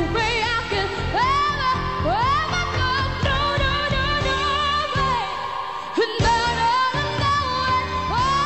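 Pop song performed with instrumental backing: a high singing voice belts long held notes with vibrato, scooping up into them, and the backing thins briefly about six seconds in.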